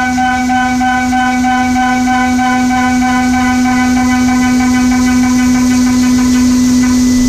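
Brother CNC mill cutting an AR-15 lower receiver: the spindle and cutter give a steady pitched tone with a row of overtones and a hiss above. The upper overtones fade about six seconds in while the main tone holds.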